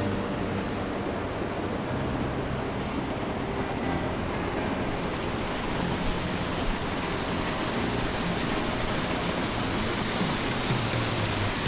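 Mountain stream water flowing steadily, a constant even rush with no breaks.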